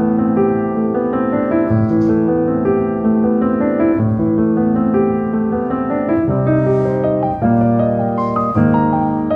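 Background piano music playing steady, gentle chords and melody notes.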